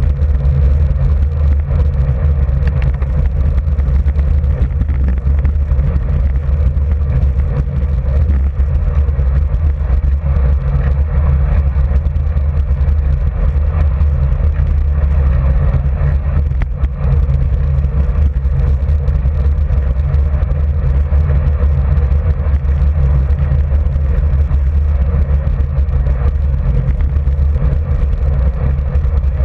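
Steady low rumble of wind buffeting the microphone and tyres rolling on asphalt, picked up by a camera mounted on a road bike ridden at about 35 km/h.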